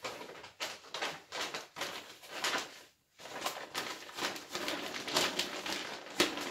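Large glossy laminated plastic shopping bag rustling and crinkling as it is handled, unfolded and shaken out, with a brief pause about three seconds in.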